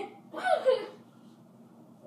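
A child's voice making a short two-part vocal sound, like a chuckle or a word without clear speech, then quiet room tone.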